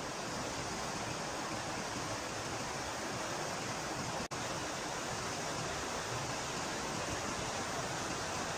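Steady, even rushing noise with no distinct events, cut off for an instant about four seconds in.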